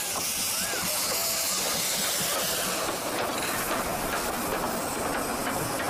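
Steam locomotive venting steam from its cylinder cocks: a steady hiss that holds the whole time.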